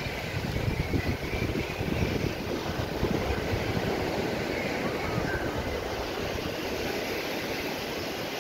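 Wind buffeting the phone's microphone in uneven gusts, over the steady wash of breaking surf.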